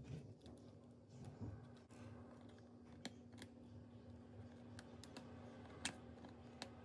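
Near silence with a few faint, sharp clicks of metal tweezers touching small parts inside an opened MacBook Pro, the clearest about six seconds in, over a steady faint hum.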